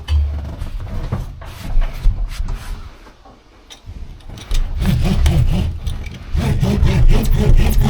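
Rubbing and scraping as a thick, stiff sound-insulation sheet is handled and pressed against the truck cab's metal panels, quieter for a moment partway through and then denser and louder from about halfway.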